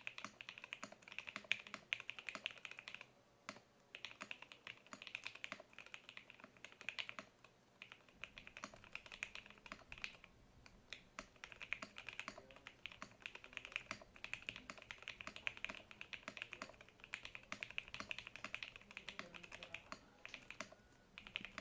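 Typing on a custom tenkeyless mechanical keyboard: acrylic gasket mount, FR4 plate, lubed JWICK Black linear switches and PBT keycaps. Fast, continuous keystrokes with a few short pauses.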